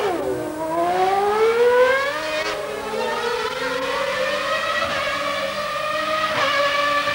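Car engine revving: its pitch climbs gradually over the first few seconds, then holds high and steady.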